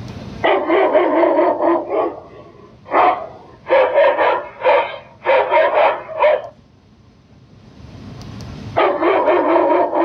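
Handheld megaphone (MZ MIC11) playing its built-in dog-bark sound effect through the horn speaker. A quick run of barks, then five single barks about a second apart, a short pause, and another quick run near the end.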